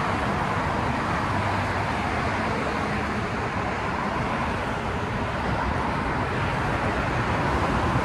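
Steady freeway traffic noise: a continuous wash of passing cars with no single vehicle standing out.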